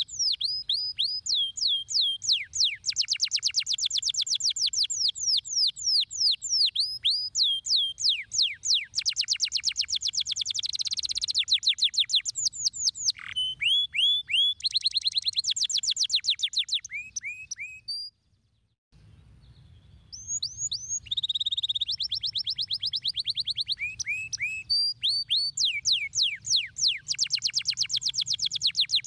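Domestic canary singing: long rapid trills of repeated falling-pitch notes and buzzy rolls, with one brief break a little past the middle.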